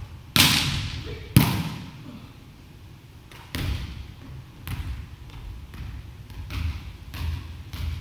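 Volleyball jump serve: a loud, sharp slap of the hand striking the ball, then about a second later a heavy thud of the ball hitting the wooden gym floor, both echoing in the hall. After that comes a string of softer thuds on the court about every half second.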